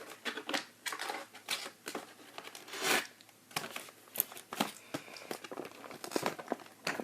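Plastic toy packaging crinkling and tearing in irregular crackly bursts as it is handled and opened.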